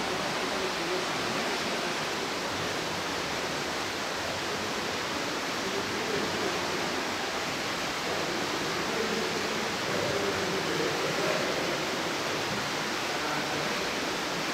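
Steady rushing of water from the cave's underground river, an even hiss that does not change.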